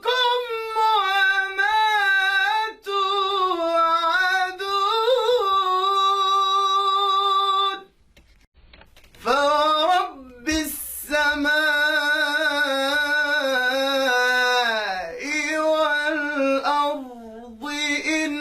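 A man chanting the Quran in melodic tajweed style, drawing out long held notes with ornamented turns of pitch. He breaks off for about a second and a half a little before the middle, then begins another long drawn-out phrase.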